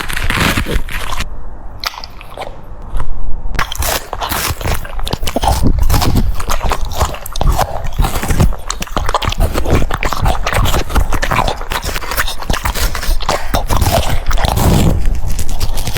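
A French Bulldog chewing and crunching food close to the microphone, with rapid, irregular wet bites and smacks. The sound dulls for a couple of seconds about a second in, then comes back loud.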